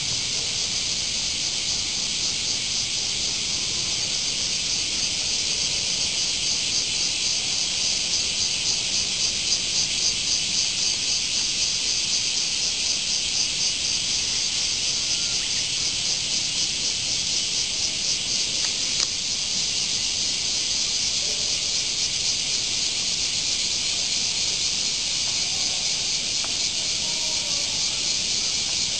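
Chorus of cicadas: a steady, high, pulsing buzz that swells in the middle and eases off again.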